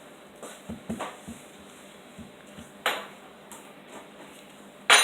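Spatula knocking and clicking against a mixing bowl: a few soft taps, one sharp click midway, and a louder ringing clatter at the end.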